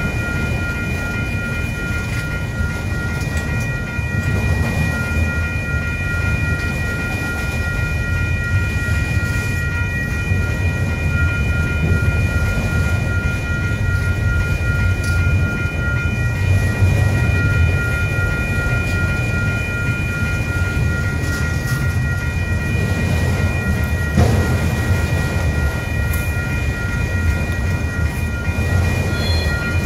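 Freight train's autorack cars rolling past: a steady heavy rumble of steel wheels on rail. A grade-crossing bell rings steadily over it.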